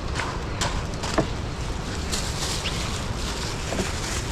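Hurricane wind and rain: a steady rushing noise with a low rumble of wind buffeting the microphone, broken by a few sharp taps and a brief louder gust of hiss in the middle.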